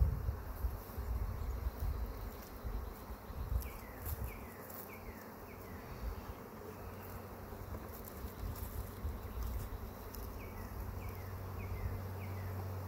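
Honeybees from a freshly hived swarm buzzing around a wooden hive box, the hum settling into a steady drone about ten seconds in.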